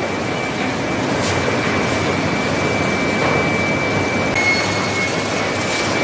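Steady din of sawmill line machinery running, with a constant high whine that steps down slightly in pitch about four seconds in.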